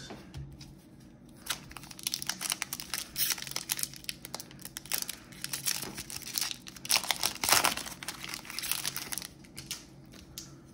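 Foil wrapper of a Topps baseball card pack crinkling and tearing as it is opened, starting about a second and a half in and stopping shortly before the end, loudest a little past the middle.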